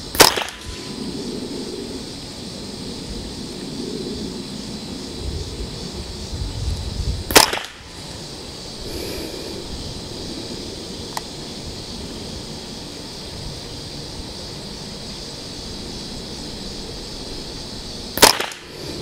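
Ruger 10/22 Target Lite .22 LR rifle firing CCI Standard Velocity rounds: three single shots, the first near the start, the second about seven seconds later and the third near the end.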